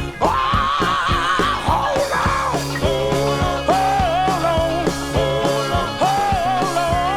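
Gospel quartet music from a vinyl LP: a high held note with vibrato for about the first two seconds, then sustained harmonies over a bass line and a steady drum beat.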